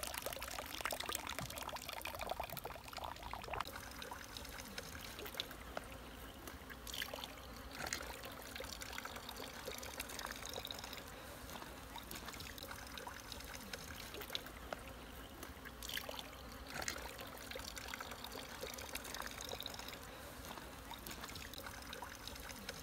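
Faint, steady trickle of water spilling from a plastic pipe into a concrete water channel.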